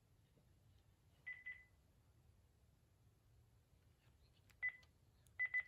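Keypad beeps from a cordless phone handset: short single-pitch electronic beeps, two about a second in and three more near the end, as buttons are pressed.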